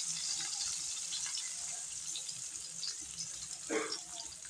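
Salted fish pieces frying in shallow oil in a wok: a steady sizzle with light crackles as chopsticks move the pieces about, and a brief louder clatter near the end.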